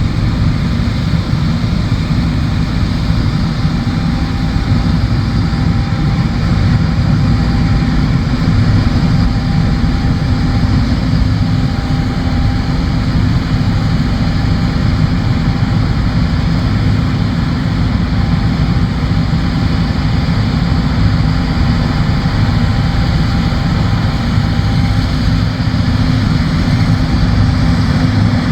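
John Deere S780 combine harvester running steadily, a continuous heavy engine and machinery drone.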